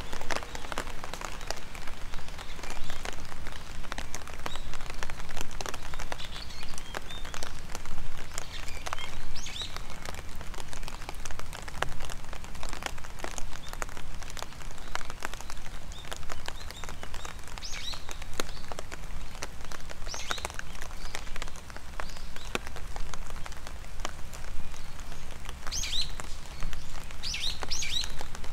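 Steady rain with many separate drops ticking close by, and birds chirping in short calls now and then, several together near the end.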